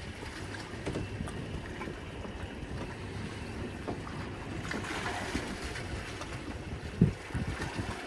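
Wind buffeting the microphone and water washing against a fishing boat's hull, with a single sharp knock about seven seconds in.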